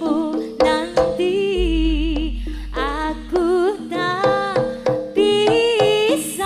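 Live jaranan music: a wavering melody line with drum strokes and a deep bass tone underneath.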